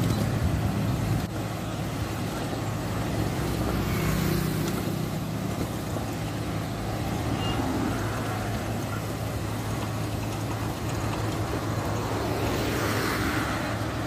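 Truck-mounted microsurfacing paver's diesel engine running steadily at close range, a constant low hum, with road traffic passing on the open lanes.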